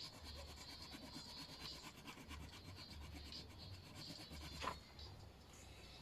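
Faint scratchy rubbing of a colouring tool on paper, many quick back-and-forth strokes as an area is shaded in. There is one sharp tap about three-quarters of the way through, and the strokes are quieter after it.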